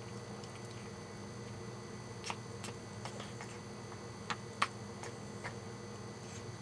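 A pet eating, heard as a handful of short, sharp clicks and smacks over a steady low hum; the two loudest come close together a little past halfway.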